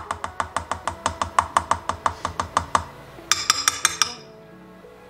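A spoon knocking vegan ranch out of a plastic measuring cup into a glass baking dish: a quick, even run of taps, about seven a second, for nearly three seconds. Then, a little past the middle, a brief cluster of higher, ringing clinks.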